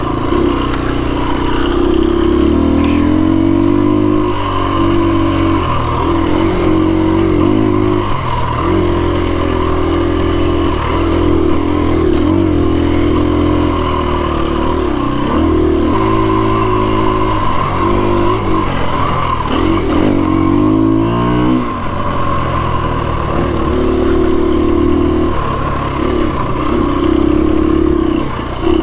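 2017 KTM 250 EXC-F's single-cylinder four-stroke engine running under load on a trail ride, its pitch rising and falling with the throttle and gear changes. The engine note climbs steeply a couple of times, around four seconds in and again near two-thirds of the way, then drops sharply as the throttle is shut.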